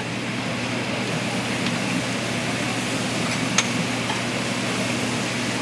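Commercial kitchen sound: a steady hiss of meat sizzling on a flat-top griddle over a low hum, with a few light metal clinks.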